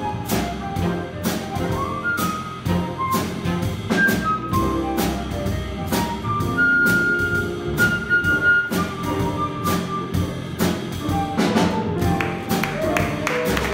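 A jazz combo plays a blues, with a flute soloing over upright bass, keyboard and drums. The drums give steady cymbal strokes. Applause starts to build near the end as the flute solo closes.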